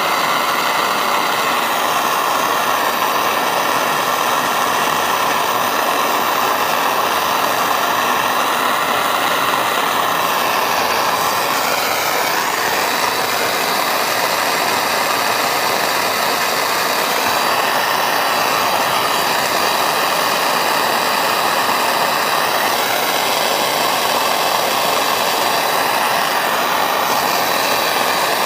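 Soldering torch flame burning with a steady, loud rushing noise as it heats a steel buckle and its silver filigree overlay to hard-solder temperature, before the solder flows.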